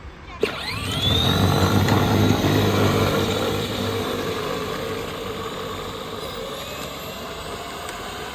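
Power Wheels ride-on car's electric drive motors whining as it accelerates. The whine rises quickly in pitch after a sudden start about half a second in, holds steady at speed, then fades slowly.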